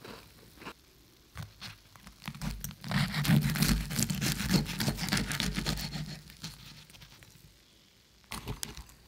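Fork pressing into and tearing a piece of crispy battered fried chicken, the crust crackling and crunching for a few seconds, loudest from about two and a half seconds in. A couple of light clicks come near the end.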